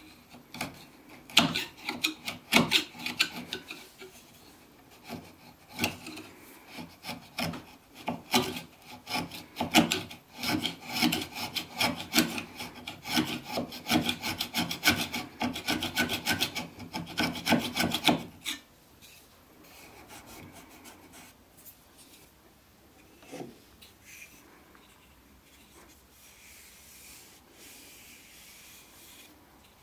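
A steel file rasping back and forth against the wood inside the throat of an old wooden hand plane, in quick, irregular strokes that stop about eighteen seconds in. After that only faint handling sounds remain.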